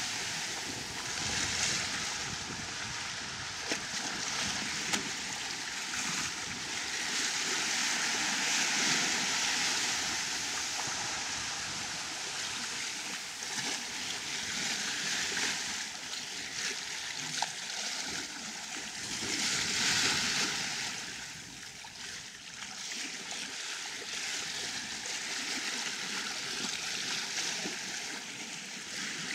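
Sea water rushing and splashing along the hull of a sailing yacht under way, the bow wave's noise swelling and easing several times.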